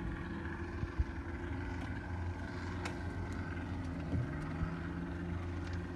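A boat motor running with a steady low hum; a second, slightly higher steady tone joins about four seconds in.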